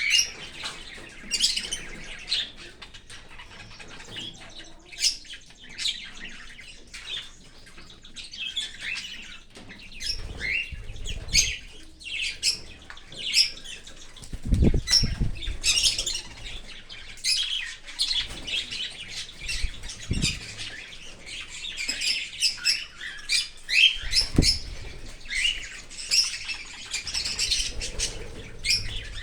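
Cockatiels chirping and calling in quick, repeated short notes, with a few low rumbles or thuds scattered through.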